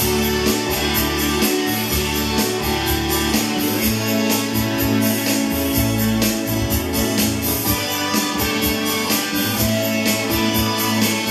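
Instrumental break of a song's backing track: guitar-led music over a steady beat.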